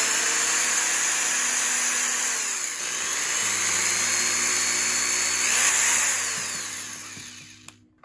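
Handheld electric drill running and boring holes through the thin plastic shell of a toy proton-pack wand. It dips briefly about three seconds in, then winds down and stops near the end.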